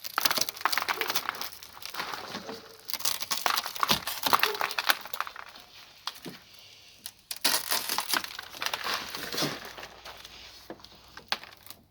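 Pieces of broken car rear-window glass being handled and cleared from the window's rubber seal, a dense crunching and crinkling in two long spells with a short lull between.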